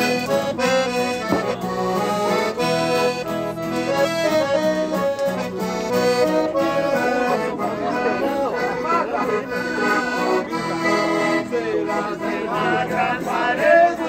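Live accordion and guitar playing traditional festa junina music, with people's voices talking over it in the second half.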